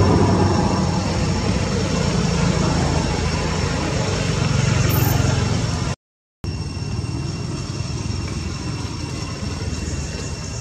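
Steady low engine rumble, easing off slowly, with two thin steady high tones above it. The sound cuts out completely for a moment about six seconds in.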